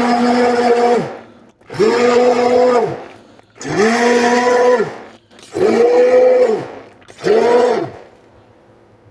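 Electric blender run in short pulses, about one second each, five times, its motor whining up to speed and winding down after each. It is pureeing apricots for marmalade.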